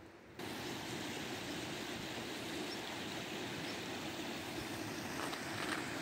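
Flood water rushing steadily through the wadi channel, cutting in suddenly about half a second in.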